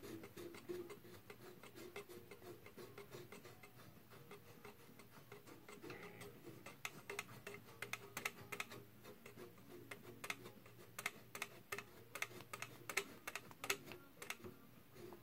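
Stiff tuning capacitor of a 1934 RCA 128 radio being turned back and forth by hand: a run of irregular dry clicks and ticks, sparse at first and much thicker in the second half. The shaft turns rough on its ball bearings even after oiling, and sounds scratchy toward the end of its travel.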